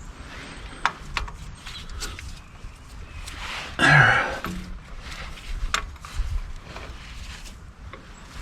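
Scattered metal clicks and knocks of a wrench working the cylinder head bolts as they are loosened. A man's short grunt or throat-clearing sound about four seconds in.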